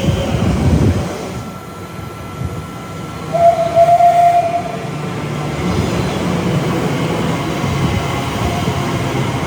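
A train running past on the rails, with one short single-note blast of its horn about three seconds in, the loudest sound here.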